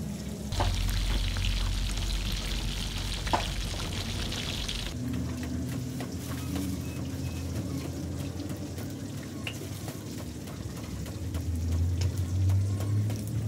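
Water pouring and sloshing for a few seconds. After it stops, a low steady hum runs on and swells near the end.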